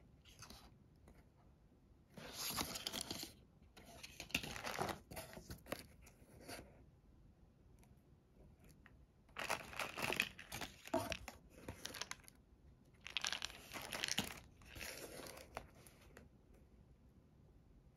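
Hands rummaging in a cardboard shipping box and handling paper and plastic cosmetic packaging: rustling and crinkling in several bursts with quiet gaps between them.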